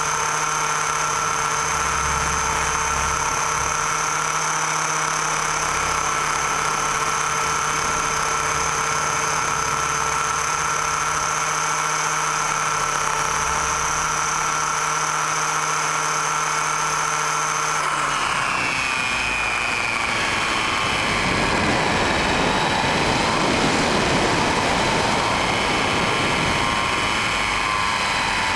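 Radio-controlled model helicopter running with a steady high whine. About two-thirds of the way through, the whine breaks off and is replaced by wavering, sliding tones over a rushing noise.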